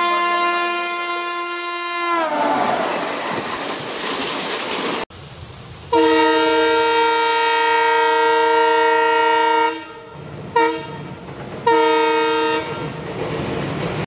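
Indian Railways locomotive horns. A sustained horn drops in pitch about two seconds in as the train passes, giving way to the clatter of the train rolling by. Then a diesel locomotive's horn sounds one long blast of about four seconds, a short toot and a second blast of about a second, over the rumble of wheels on the bridge.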